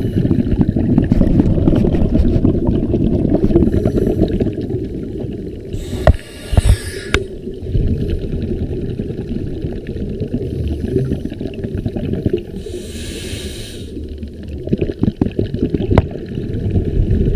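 Scuba regulator breathing heard underwater: loud low bubbling of exhaled air, a hiss of inhalation once late on, and a few sharp knocks.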